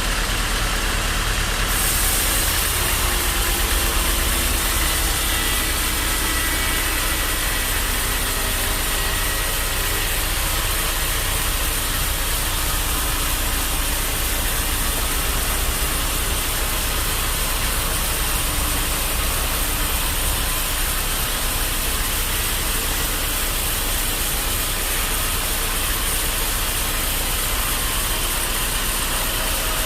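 Sawmill machinery running steadily: a continuous mechanical noise with a low hum and no breaks.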